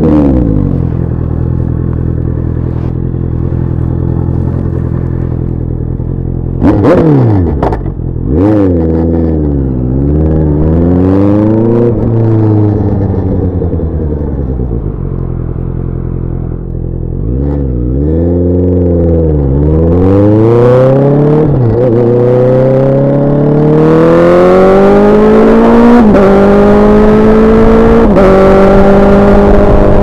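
2019 Honda CBR650R's inline-four engine through an SC-Project SC1-R exhaust with dB-killer and catalytic converter fitted. It idles, is revved several times with the pitch rising and falling, then pulls away and accelerates, the pitch climbing with two upshifts near the end.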